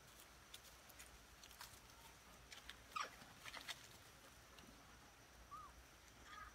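Near silence: faint outdoor background with a few scattered soft clicks and a couple of brief, faint chirps.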